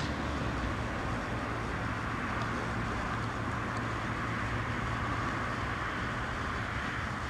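Steady rushing outdoor background noise with a faint low hum underneath, even throughout, with no distinct events.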